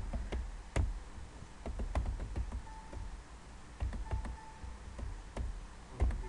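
Computer keyboard typing: irregular runs of key clicks with short pauses between them.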